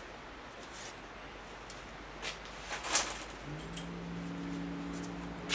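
A few light clicks and knocks from handling small parts and tools, the loudest about three seconds in, then a steady low machine hum that starts a little after halfway.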